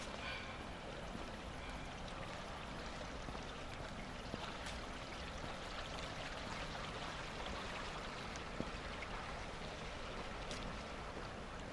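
Steady rush of shallow water flowing along a narrow concrete drainage channel, with two or three faint ticks.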